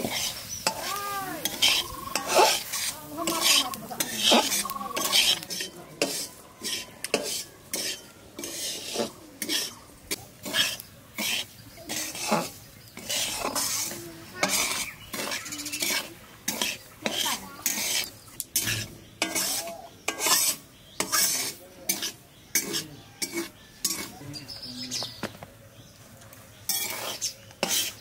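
Metal spatula scraping and stirring semolina around a metal kadai while the semolina dry-roasts, in repeated short scrapes about once a second.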